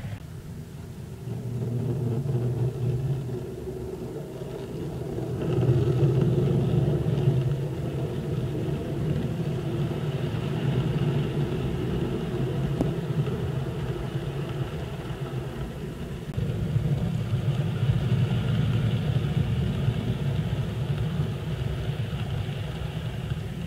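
Model trains running on three-rail O-gauge track: a steady rumble of the locomotive motors and wheels on the rails, swelling louder several times as trains pass close.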